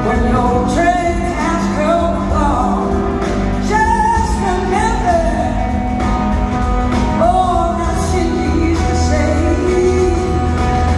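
Live soul-rock band playing: a woman singing lead over electric guitar, drums, organ and a horn section, heard distant and grainy from high in a theatre balcony.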